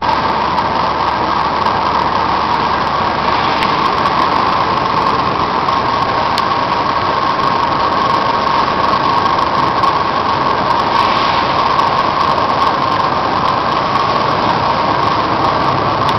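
Coffee dryer running: a loud, steady machine drone with a constant mid-pitched hum, unchanging throughout.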